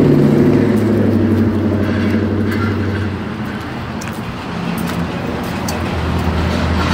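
A road vehicle's engine running with a steady low hum, easing off slightly around the middle and building again near the end.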